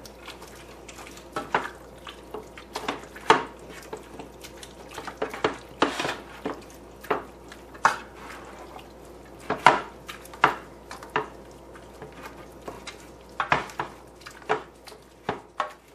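A long-handled utensil stirring a thick mix of shredded chicken and cream cheese in a slow cooker crock, knocking and scraping against the crock's sides in irregular clicks, about one a second.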